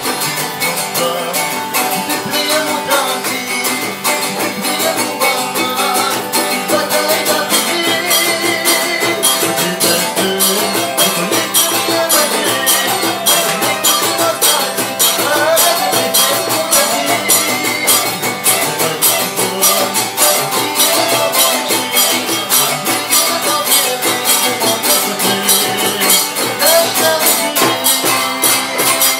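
Music: singing over a fast, steady rattling percussion beat.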